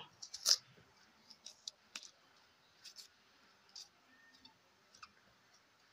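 Kitchen knife peeling shallots: a few light, scattered clicks and scrapes, the sharpest about half a second in.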